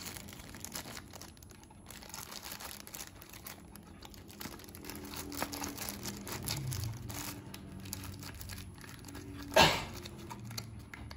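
Clear plastic bag crinkling and rustling as the scope mounting rings inside it are handled, with light handling of a small cardboard box. One sharper, louder crackle comes near the end.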